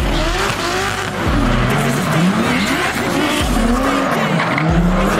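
Two drift cars sliding in tandem, their engines revving up and falling back again and again with tyres screeching under the slide.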